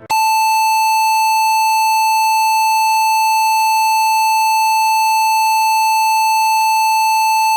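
A loud, steady electronic beep: one unchanging high tone held for about seven and a half seconds, then cut off suddenly. It is used as a deliberately harsh 'earrape' sound effect.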